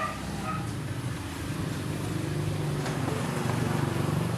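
An engine running steadily at idle, a low even hum that grows a little louder toward the end.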